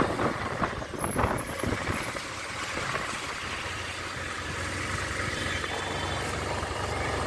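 Motorcycle and truck engines running at close range as the motorcycle draws up beside the truck; after an uneven first couple of seconds a steady low engine hum settles in.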